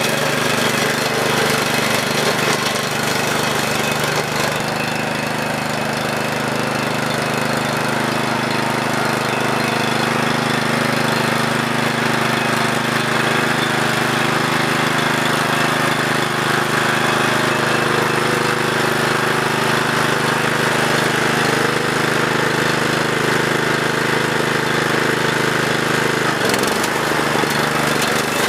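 Walk-behind brush hog's gasoline engine running steadily as the mower is pushed through tall grass and saplings, its blade cutting the brush. Near the end the engine's pitch dips briefly, then recovers.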